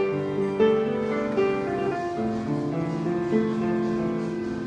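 Grand piano played solo: slow, sustained chords under a simple melody, the notes ringing on, with the playing gradually getting quieter.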